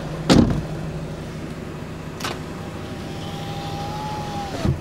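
Power window of a 2010 Mazda MX-5 being raised: a thump as it starts, then a thin motor whine that sags in pitch and ends in a thump as the glass seats at the top, over a steady low hum.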